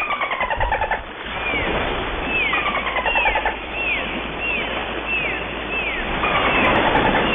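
Dolphin whistles and clicks: a string of short whistles, each rising briefly then falling, following one another roughly every two-thirds of a second. Rapid buzzing click trains sound at the start and again about three seconds in, over a steady hiss.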